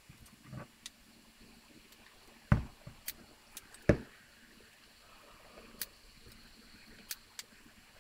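Two sharp knocks about a second and a half apart, with several lighter clicks scattered around them: a cordless brad nailer and cedar plywood panels being worked on a cabinet.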